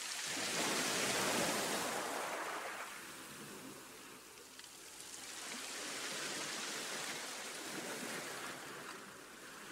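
Rushing water like ocean surf, rising and falling in two long swells, the first near the start and the second in the latter half.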